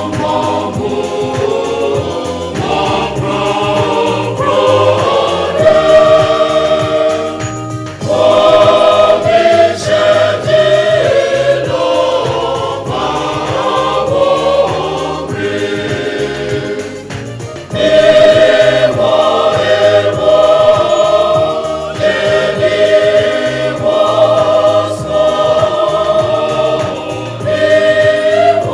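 Choir singing a Presbyterian hymn in Ga, in long sustained phrases with short breaks between lines about 8 and 18 seconds in.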